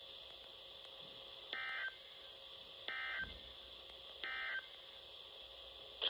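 RadioShack NOAA weather radio's speaker playing three short, buzzy SAME digital data bursts about 1.3 s apart, over a faint steady hiss. Their shortness marks them as the end-of-message code that closes an EAS weekly test.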